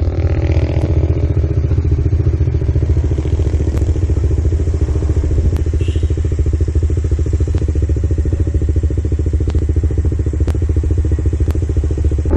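Kawasaki Dominar 400's single-cylinder engine idling steadily through a budget aftermarket muffler, with a deep, bassy exhaust note.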